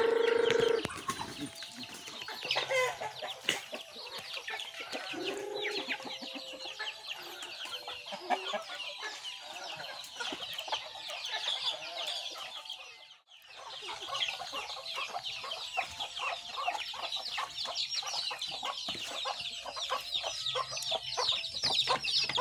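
A flock of chickens: chicks peeping continuously in many short, high-pitched calls, with hens clucking underneath. A louder, lower call comes right at the start, and the sound briefly drops out about halfway.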